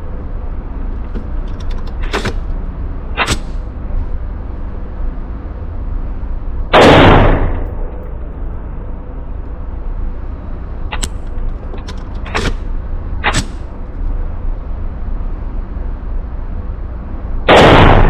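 AR pistol gunfire in an indoor range: two very loud blasts, about 7 seconds in and near the end, with several sharper, fainter gunshot cracks in between, over a steady low rumble.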